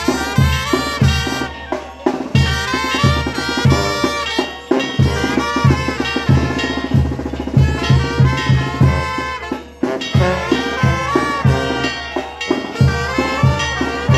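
Band music with brass and drums playing a steady beat.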